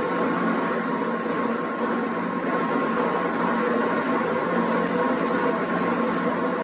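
Steady hum and hiss in the background, with a few faint clicks as the power connector of a test-set interconnect cable is handled and mated to the high-voltage transformer's cable.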